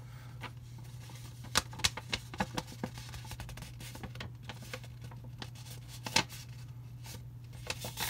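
Paper note being handled while it is read: faint scattered rustles and clicks over a steady low hum.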